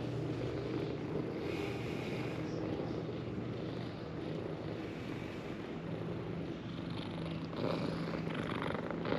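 A cat purring close to the microphone, a steady low rumble that grows louder about three-quarters of the way through.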